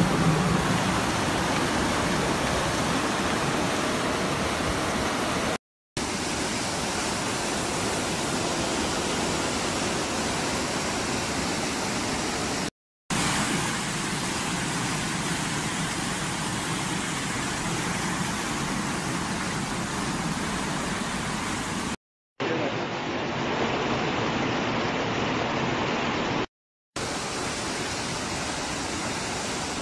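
Flash-flood water rushing through streets as a steady noise, heard in several clips joined by four brief silent cuts.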